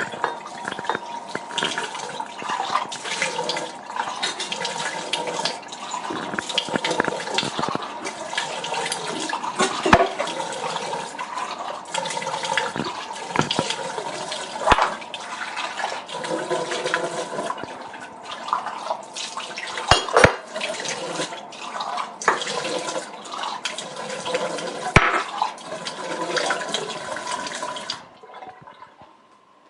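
Water trickling from a tap in an uneven, spattering stream, with a few sharper splashes along the way. The flow stops near the end.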